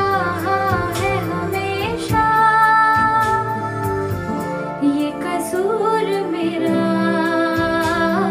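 A woman singing a Hindi song over an instrumental backing track, sliding between notes and holding two long notes.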